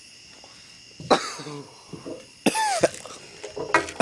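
A person coughing in harsh bursts: one about a second in, a longer one at about two and a half seconds, and several close together near the end.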